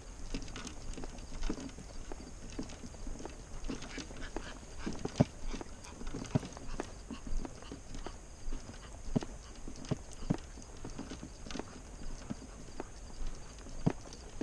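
Irregular footsteps and small knocks, a sharp tap every half second to couple of seconds, over a low steady rumble of wind on the microphone.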